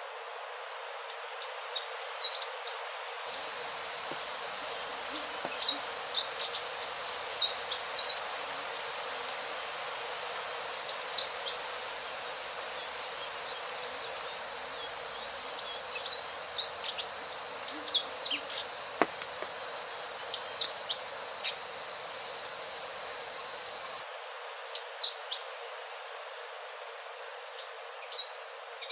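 Indigo flycatcher (sikatan ninon) singing: phrases of quick, high, sharply gliding notes, broken by a few pauses of a couple of seconds, over a steady hiss.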